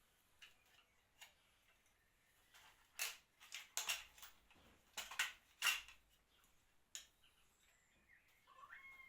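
A run of sharp, irregular clicks and taps from work on the exhaust manifold studs of a Toyota 2RZ-E engine, bunched in the middle with one more a second later.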